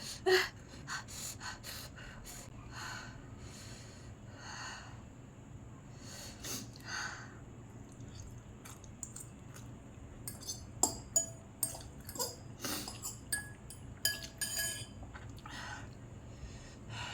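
A woman breathing hard through her mouth, a series of separate hissing breaths from the burn of very spicy noodles. A few short clicks come in the second half.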